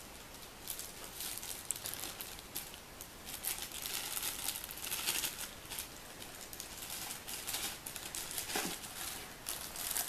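Plastic bags crinkling and rustling on and off as bagged accessories are handled and taken out of their box.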